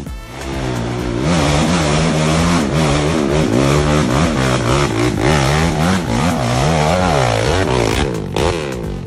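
ATV (quad) engine revving hard, its pitch rising and falling again and again as the throttle is worked, then easing off near the end.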